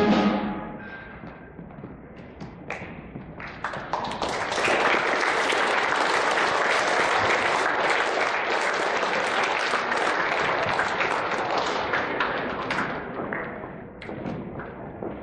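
Audience applauding, the clapping swelling about four seconds in, holding steady, and fading out near the end, with scattered single claps before and after.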